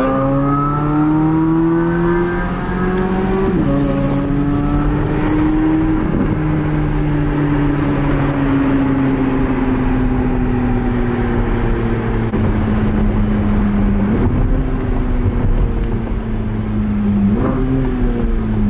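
Chevrolet Corvette C8 Z06's flat-plane-crank V8 under way. The revs climb for the first few seconds, then drop suddenly at a gear change about three and a half seconds in, and ease slowly down after that. Later the pitch steps up briefly twice as it shifts down.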